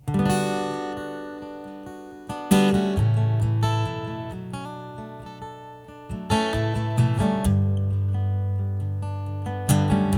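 Acoustic guitar playing the instrumental intro to a folk song, chords strummed and left ringing, with fresh strokes about every three to four seconds.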